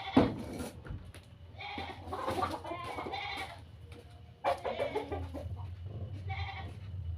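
Goats bleating loudly, several separate calls one after another.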